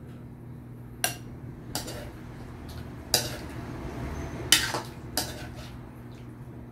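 Metal ladle clinking and scraping in a wok and against a glass bowl as stew is served out. There are several sharp clinks, the loudest about four and a half seconds in, over a steady low hum.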